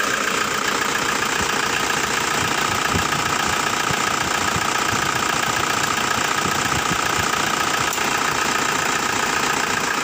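Toyota turbodiesel engine idling steadily, warm, with the oil dipstick pulled out to check for blow-by.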